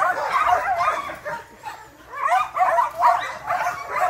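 Many dogs barking and yelping at once in a dense, overlapping chorus. It dies down briefly about two seconds in, then picks up again.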